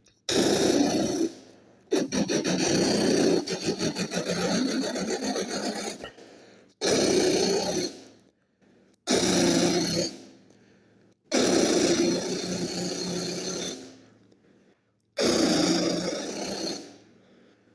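Mock jackhammer drilling: six rattling bursts, each about one to four seconds long, with short pauses between them. The second burst is the longest and has a rapid, even chatter.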